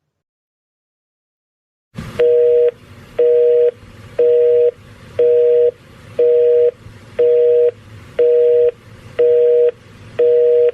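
Telephone busy signal: a two-tone beep pulsing about half a second on, half a second off, nine times, over faint line hiss. It starts about two seconds in after silence.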